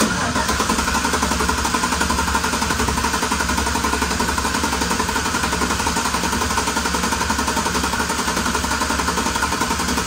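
A 2013 Chevrolet Silverado's 5.3-litre V8 cranking over on its starter for a relative compression test, a steady fast rhythmic chugging that starts abruptly and holds evenly. The engine has an intermittent misfire on cylinder 8, which is losing compression at times.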